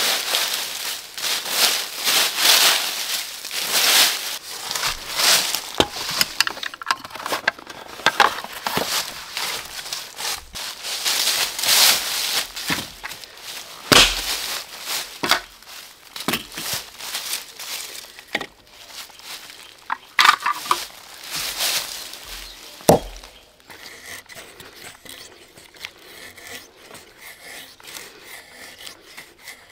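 Dry leaves rustling and crunching as they are scooped out of a fire pit and trodden through, with a few sharp knocks along the way. Near the end this gives way to quieter, quick scraping of a knife blade shaving thin curls off a dry stick for tinder.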